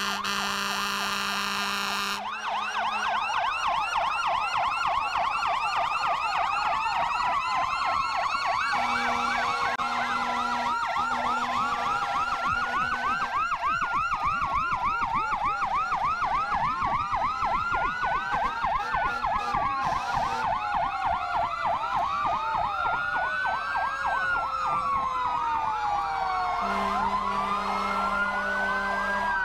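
Several fire engine sirens sounding at once as the trucks pass: fast yelps overlap slower wails that rise and fall. A truck horn blares at the start, sounds in short blasts about ten seconds in, and comes on again near the end.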